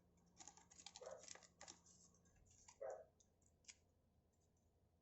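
Faint soft clicks and rustles of trading cards being handled and flipped through, scattered over the first four seconds, then near silence.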